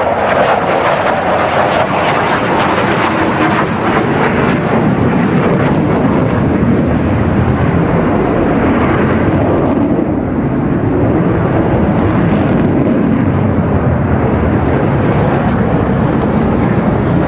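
F-16 Block 60 fighter's General Electric F110 afterburning turbofan running loud and steady as the jet manoeuvres overhead. Its pitch rises and then falls away about halfway through as it swings past.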